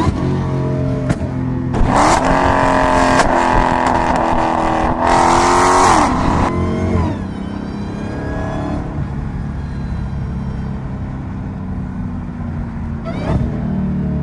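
Dodge Hellcat's supercharged 6.2-litre HEMI V8 accelerating hard: about two seconds in, the revs climb for some four seconds. Then the pitch falls away as it backs off into steady cruising.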